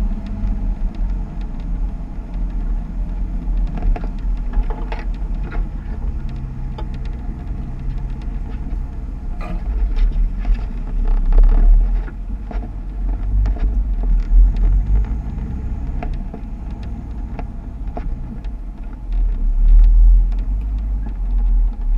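Jeep running at low speed off-road, its engine a steady low rumble that swells twice, with scattered knocks and creaks from the vehicle working over rough ground.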